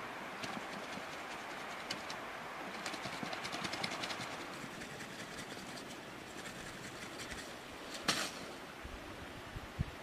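Dry sticks and twigs crackling and snapping as firewood is handled, with a dense run of crackling a few seconds in, one sharp snap about eight seconds in, and a couple of dull knocks of wood near the end, over a steady background rush.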